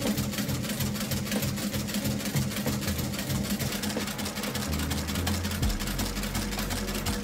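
Industrial outsole stitching machine running, a rapid, even mechanical clatter as it stitches a new leather sole onto a shoe.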